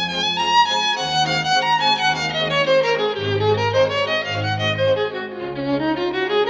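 Background music: a violin melody over a bass line. The notes step downward from about a second in and climb again near the end.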